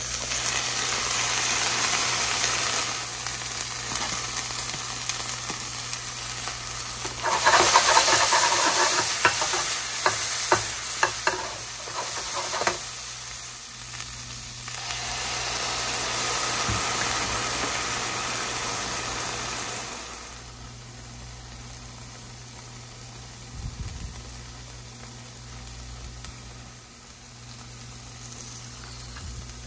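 Green beans sizzling in oil in a stainless steel skillet, with a louder stretch of sizzle and sharp clicks of stirring about seven to thirteen seconds in. The sizzle drops to a lower, quieter level after about twenty seconds.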